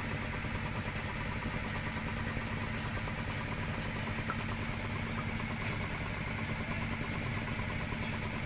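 A small engine running steadily at idle, an even drone that neither rises nor falls, with a few light splashes of water as a gold pan is swirled in a basin.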